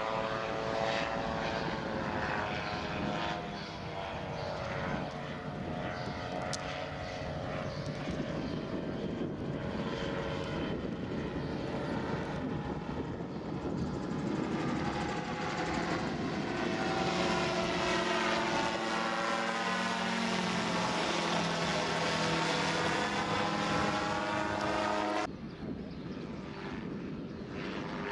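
Gyroplane engine and pusher propeller droning in low flight, the pitch shifting and the sound swelling as the machine passes overhead. About 25 seconds in it cuts abruptly to a quieter engine drone from a second gyroplane flying low.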